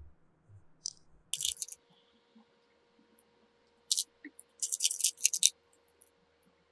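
Small hard candies clicking and rattling against a small plastic bowl as they are picked out by hand, in a few short bursts about a second in and again around four to five seconds in.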